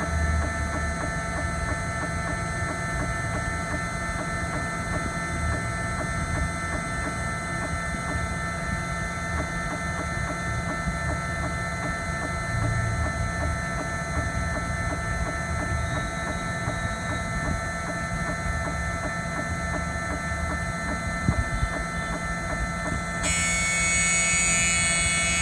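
Spindle motor of a small desktop CNC cutting machine running steadily, a hum with a set of steady whining tones. About two seconds before the end a high, hissing scratch sets in: the cutter touching the surface of the chip, the contact sound used to find its height.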